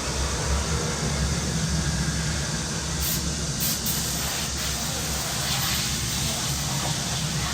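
Summer cicadas buzzing in a steady, unbroken chorus over a low, continuous city rumble.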